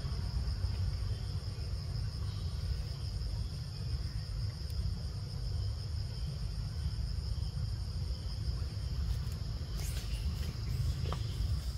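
Insects droning steadily at one high pitch over a constant low rumble, with a few faint clicks near the end.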